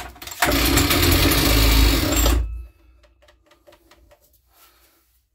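Spear and Jackson two-stroke petrol trimmer engine, choked, pull-started: it fires and runs loudly for about two seconds, then drops away about two and a half seconds in.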